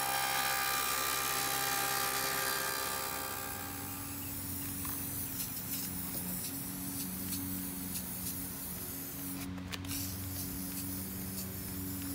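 Table saw running with a steady whine. About three and a half seconds in it gives way to an aerosol spray can hissing, with a brief break in the spray later on.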